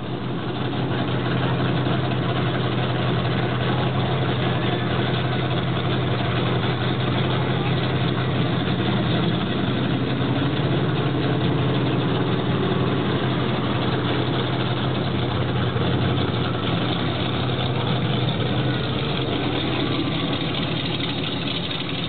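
Monster truck engine running steadily at low speed, a continuous low drone that swells over the first couple of seconds and then holds, easing a little near the end.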